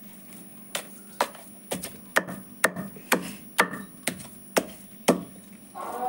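Wooden pestle pounding raw chicken in a stone mortar, pounding the meat to a paste for rista: a steady knock about twice a second, around ten strikes. Music comes in just at the end.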